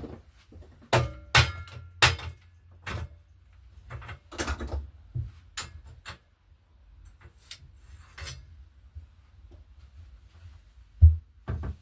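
A series of irregular knocks and clunks from objects being handled and set down, one with a brief ringing after it, the loudest two near the end.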